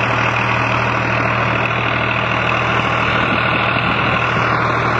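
New Holland 3600-2 tractor's diesel engine running steadily at an even speed.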